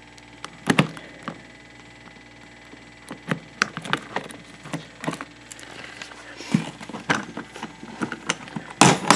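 Scattered hard plastic clicks and knocks as a Magpul polymer ammo can is handled and its latches and lid are worked open. The loudest knocks come just under a second in and near the end.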